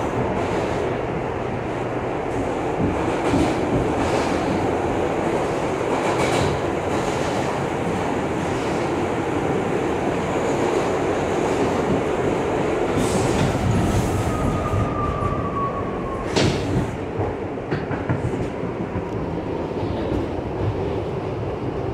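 Steady rumble of an R62A subway car running through the tunnel, heard from inside the car, with the clickety-clack of wheels over rail joints. A brief falling whine comes about two-thirds through, and near the end the train slows into a station.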